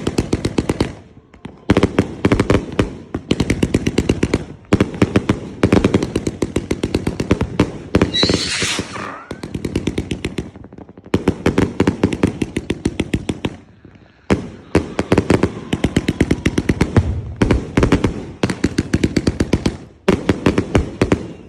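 Firecrackers going off in rapid runs of sharp bangs, each run lasting a second or few with brief pauses between. About eight seconds in, a short hissing whistle cuts through the bangs.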